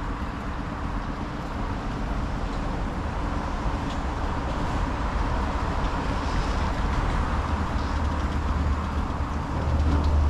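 Wooden skiff's engine running steadily under way, a low drone that grows a little louder near the end. The engine was recently serviced with new spark plugs after fouled plugs had made it die.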